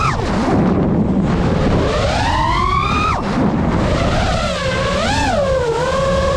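FPV quadcopter's motors and propellers whining with throttle: the pitch climbs over about two seconds, drops sharply about three seconds in, then wavers up and down. Wind and prop-wash rumble sit under the whine.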